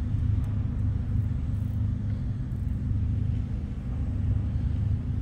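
Steady low engine hum, an even deep drone that holds unchanged throughout.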